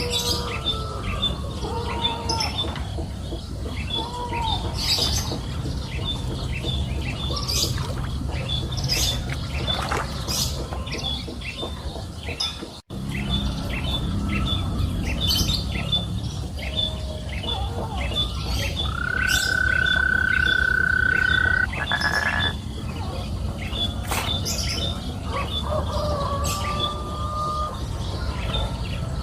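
Birds chirping and calling, with one chirp repeating steadily two to three times a second over a low steady hum. About two-thirds of the way through, a steady whistle-like tone holds for about three seconds. The sound cuts out for a moment near the middle.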